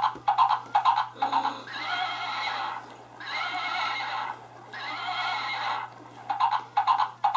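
Plush rocking horse's built-in sound effect: recorded galloping hoofbeats at about four a second, giving way about a second in to a recorded horse whinny in three long surges, before the galloping starts again near the end.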